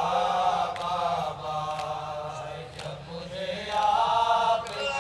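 A group of men chanting an Urdu noha, a Shia lament, in unison without instruments, in long drawn-out lines. The chant swells at the start and again, louder, about four seconds in.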